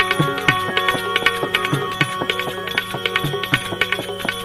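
Instrumental break in a devotional bhajan: held, steady notes under a regular hand-drum beat of roughly two strokes a second, with quick light ticks over it and no singing.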